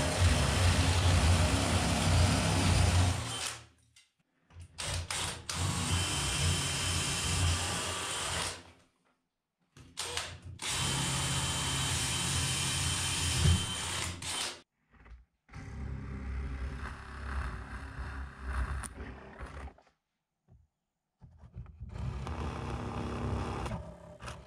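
DeWalt cordless drill with a long bit boring through a thick plywood-and-timber wall, run in about five steady bursts of three to four seconds each with short pauses between them.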